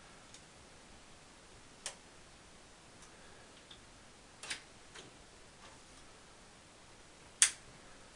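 A handful of sharp, scattered clicks and taps from hands handling graphics cards fitted with large aftermarket cooler shrouds in a PC case, the loudest near the end.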